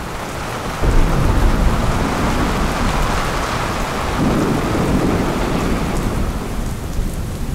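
Thunder rolling over steady heavy rain, with a sudden louder crack about a second in and another swell a few seconds later.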